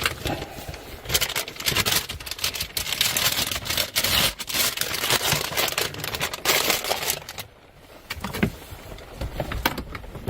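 Hard plastic dashboard parts scraping and rattling, with many sharp clicks, as a trim piece is wiggled and slid loose by hand. The scraping is dense for most of it, pauses briefly near the end, then resumes as scattered clicks.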